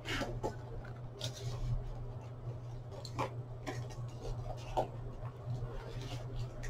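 Hands picking at and handling the plastic-wrapped packaging of a boxed display case: scattered small clicks, taps and scratches, over a steady low hum.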